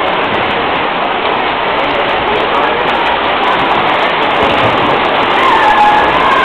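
Swimming-arena crowd cheering in a steady, loud wash of noise, with a voice rising faintly out of it near the end.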